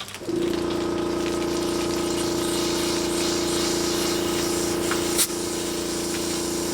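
Compressed air blown through a pressure washer's pump, check valves, unloader and hose reel to purge them: a steady hum with a rushing hiss that starts abruptly, and a sharp click about five seconds in.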